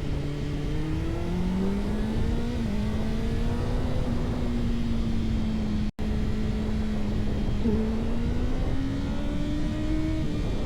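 Kawasaki ZX-6R's inline-four engine running under way, its pitch climbing about a second in, holding steady, then rising again near the end, with low rushing wind noise. The sound cuts out for an instant just past halfway.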